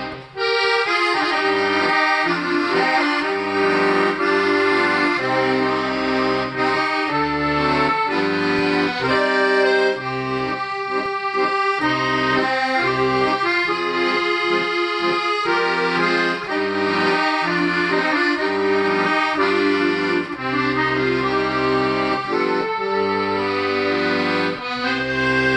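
Hohner Ouverture garmon played continuously: a tune with its melody over steady bass and chord notes from the left hand. The instrument is freshly repaired and tuned.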